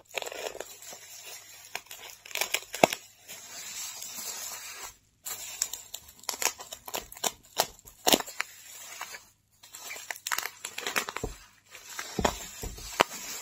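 Bubble wrap and packing tape crinkling and tearing as a parcel is slit open with a utility knife, with many sharp crackles and a steady ripping stretch about four seconds in.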